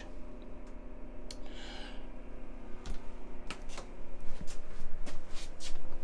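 Light scattered clicks and knocks with a brief rustle, the handling noise of someone moving about inside a motorhome, over a steady low hum. The clicks come more often in the second half.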